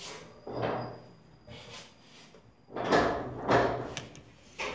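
Handling knocks and scrapes as the opened phone and its parts are moved about on the work surface. There are three or four separate knocks, each fading over a fraction of a second, with two close together near the middle.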